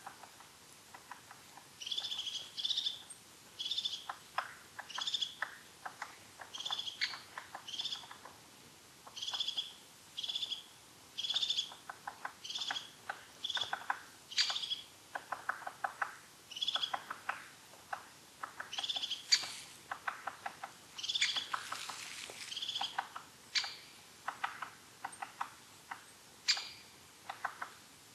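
Small birds calling in a pine forest: short, sharp high calls repeated roughly once a second, with quicker, quieter ticking calls in between.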